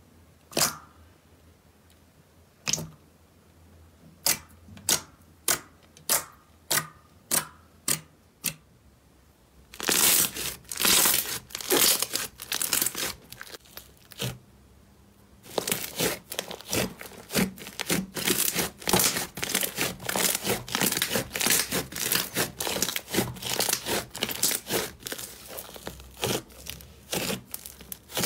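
Slime being pressed and kneaded by hand. First come single sharp clicks as fingers press a glossy clear slime, speeding up to about two a second. About ten seconds in, thick pale green slime is squished with dense, rapid crackling, which pauses briefly and then resumes.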